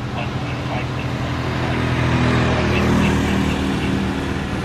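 A vehicle's engine passing close by, a low steady hum that swells to its loudest about three seconds in and then eases off.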